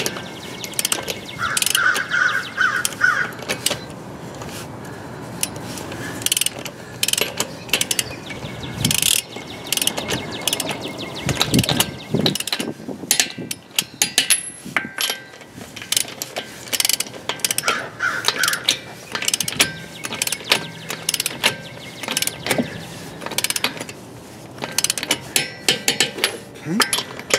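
Torque wrench ratcheting on wheel lug nuts: rapid runs of ratchet clicks in repeated spurts as each nut is drawn up toward the set torque.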